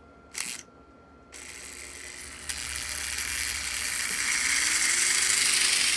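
American Flyer #1680 tinplate locomotive's electric motor and gears running, a dense whirring rattle that starts about a second and a half in and grows steadily louder, after a short click near the start.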